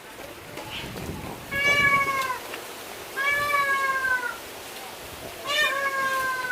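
An animal calling three times, each call about a second long, drawn out and falling slightly in pitch.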